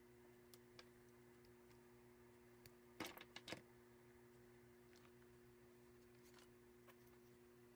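Near silence: a faint steady hum, with a quick cluster of a few small clicks about three seconds in.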